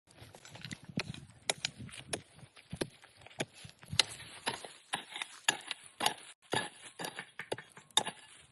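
Irregular sharp knocks and clicks, about two or three a second, over a faint low rumble.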